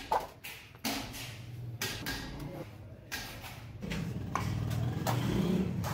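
A thin metal sheet handled on a floor, giving a handful of sharp clanks and rattles as it is moved and flexed. A low droning hum comes up in the background about two-thirds of the way in.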